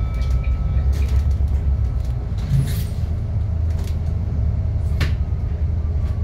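Inside a moving city bus: the steady low drone of the engine and road noise. A few clicks and rattles sound over it, with a short hiss near the middle and a sharper knock about five seconds in.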